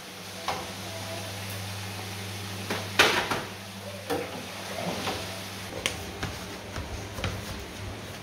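Knocks and clatters of kitchen handling at a countertop deep fryer and its basket, the loudest about three seconds in, over a steady low hum.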